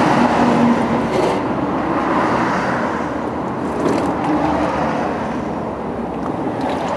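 Used engine oil draining in a steady stream from the oil pan's drain hole into a catch pan, with a continuous splashing noise that eases slightly toward the end.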